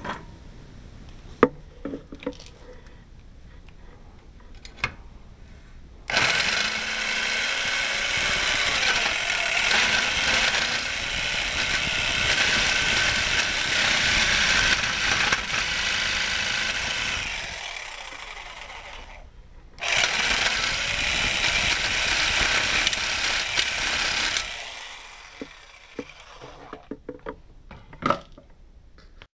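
Bosch jigsaw cutting a notch into the metal awning support arm, in two runs: one of about twelve seconds that trails off, a brief stop, then a second of about five seconds that cuts off suddenly. Light clicks and knocks of handling the work come before and after the cutting.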